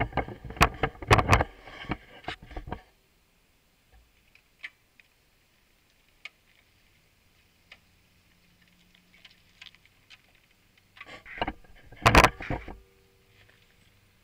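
Sharp knocks and clatter of something being handled close to the microphone, in two bursts: one for the first few seconds and another about eleven seconds in, with scattered faint ticks between.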